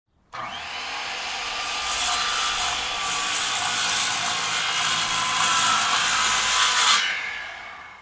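Circular saw starting abruptly and running through a cut, a steady hard whine with a gritty top. About seven seconds in the high end drops away and the blade winds down, fading out.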